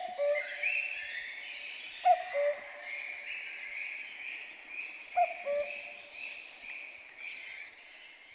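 Birdsong: a repeated two-note hooting call, a higher note followed by a lower one, every two or three seconds, over a chorus of warbling songbirds that fades out near the end.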